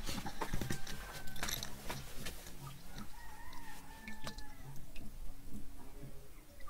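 A domestic fowl calling in the background with drawn-out, slightly wavering calls from about a second and a half in to about four and a half seconds. Short clicks and taps come before it, in the first two seconds.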